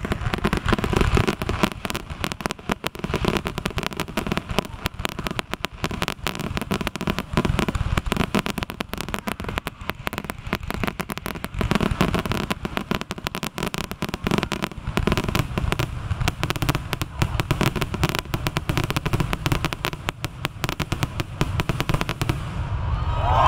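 Aerial fireworks bursting in a rapid, dense barrage of bangs and crackles, many per second, thinning out near the end.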